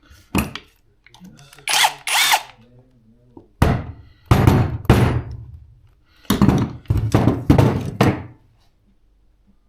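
A power drill or driver with a socket on it runs in several bursts, each a second or two long, unscrewing a nut from the swing arm. The nut comes out stuck inside the socket.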